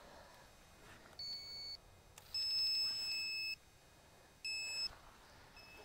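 Electronic carp bite alarms on a rod pod beeping: a short high beep, then a longer tone of about a second that begins as a quick run of beeps, then another short beep.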